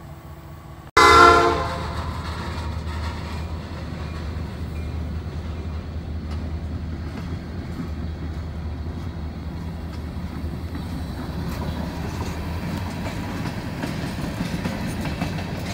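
A freight locomotive's horn sounds about a second in, starting abruptly and fading over about a second, then a train of empty hopper cars rolls past with a steady low rumble and light wheel clicks.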